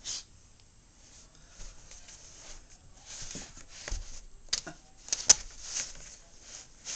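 Plastic laundry basket being tipped on carpet as a cat scrambles out over its rim: scraping and rustling with a few sharp clicks and knocks, the sharpest about five seconds in.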